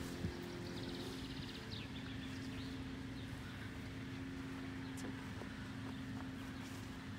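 Outdoor country ambience: a steady low hum throughout, with a short, rapid high bird trill about a second in and a few faint clicks.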